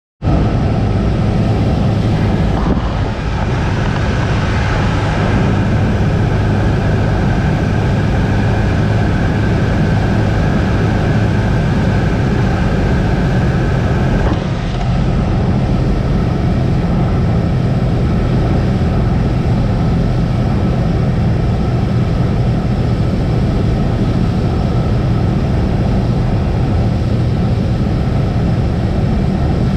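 Cessna 172's piston engine and propeller droning steadily, with the loudness dipping briefly twice.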